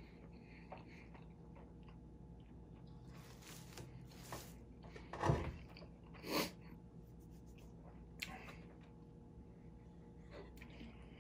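A man eating with a full mouth, breathing heavily through his nose, with two short, loud, sharp breaths out about five and six seconds in and a smaller one near eight seconds.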